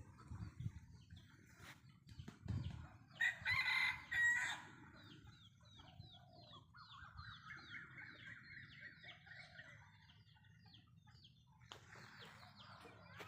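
Rooster crowing: one loud crow about three seconds in, then a longer, fainter crow in the middle, over a steady run of short high chirps.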